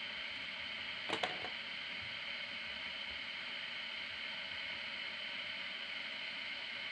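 Steady hiss, with a quick cluster of two or three sharp plastic clicks about a second in as the top cover comes off a small lead-acid battery.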